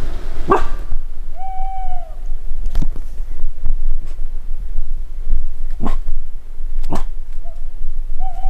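Wolf-dog whining: a short yelp about half a second in, then a drawn-out high whine that holds its pitch and drops at the end. Two shorter whines come near the end, with a few sharp cracks in between.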